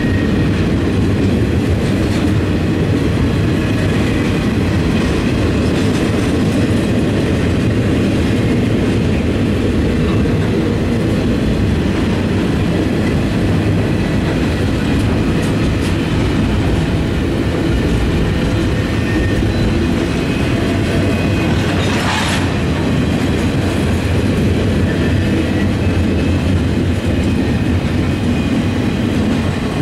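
Norfolk Southern double-stack intermodal train's container cars rolling past close by: a steady, heavy rumble of steel wheels on rail, with one brief sharper burst of noise about three-quarters of the way through.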